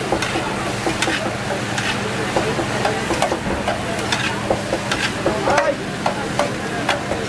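Metal spatula and tongs clinking and scraping against a large flat griddle (tawa), with irregular sharp clacks over a steady sizzle of food frying on the hot metal.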